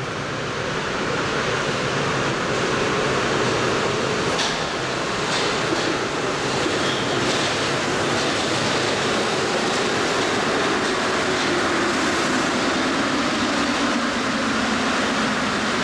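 Paris Métro MP59 rubber-tyred train pulling into the station: a steady rolling rumble that builds over the first couple of seconds. A few light clicks come about four to seven seconds in, and a hum drops in pitch in the last few seconds.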